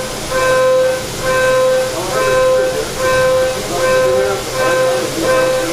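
CNC machining centre cutting metal: a steady, high-pitched cutting tone that comes and goes about every 0.8 seconds as the tool repeatedly engages the workpiece, over the steady hum of the machine.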